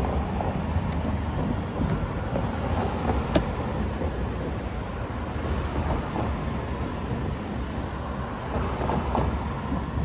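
Cars driving past on a town street: steady engine and tyre noise with a low rumble. One sharp click comes about three seconds in.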